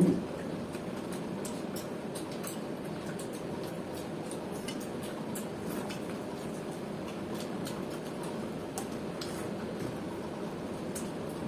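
Two people eating with their hands: fingers squelching through water-soaked rice on steel plates, with small scattered clicks of fingers and food against the metal and mouth sounds of chewing, over a steady low background noise. A short thump right at the start is the loudest sound.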